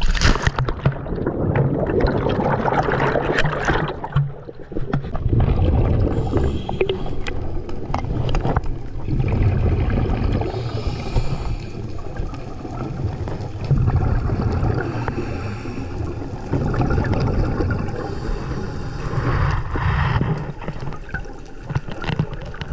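Muffled underwater sound through a GoPro: gurgling, rumbling scuba exhaust bubbles from a diver's regulator, swelling in bursts every few seconds.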